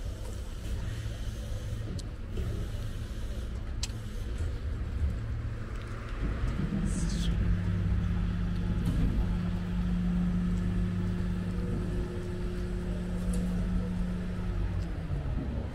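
Street traffic rumble from cars. A vehicle's engine hums steadily from about six seconds in until near the end.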